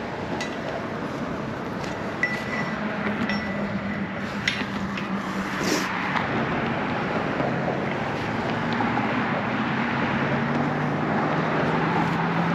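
Road traffic going by: a steady wash of tyre and engine noise with a faint low hum, growing a little louder toward the end, with a few small clicks over it.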